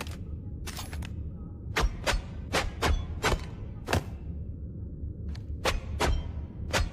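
Kunai throwing-knife sound effects: a quick, irregular series of about a dozen sharp metallic strikes, bunched closest together about two to four seconds in, over a steady low rumble.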